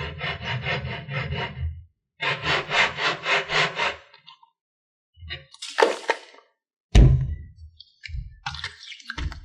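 Slime being squeezed and kneaded by hand. There are two runs of rhythmic squishing strokes, about four a second, then a few separate squelches and a sharp snap about seven seconds in.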